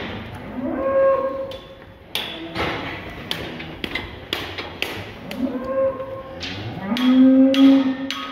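Young bulls mooing: three calls, the last long and the loudest near the end. Sharp knocks and clatters come in between.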